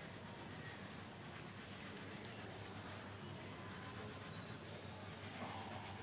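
Faint pencil scratching on paper as lines are drawn over.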